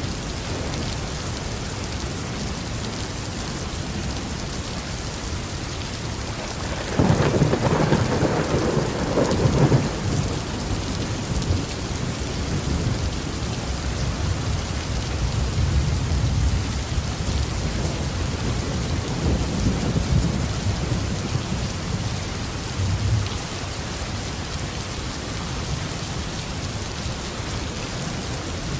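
Heavy rain falling steadily, with a sudden crack of thunder about a quarter of the way in that rolls on for a few seconds, then lower rumbles of thunder through the middle.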